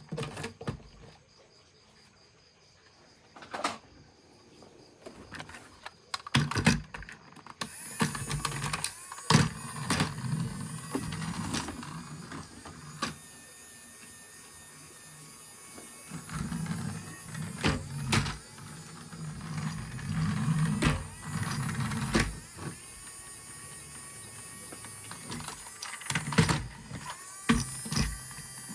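Small electric motor whirring on and off in bursts, with many sharp plastic clicks and knocks from handling; the first few seconds are nearly quiet apart from a few clicks.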